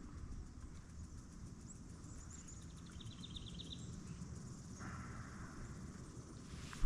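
Outdoor lakeside ambience: a steady low rumble of wind on the microphone, with a small bird's brief rapid trill about halfway through and a few faint high chirps before it.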